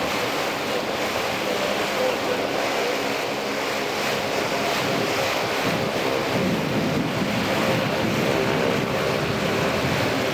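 Wind buffeting the microphone over water rushing past the hull of a moving tour boat, steady throughout, with a faint engine hum underneath.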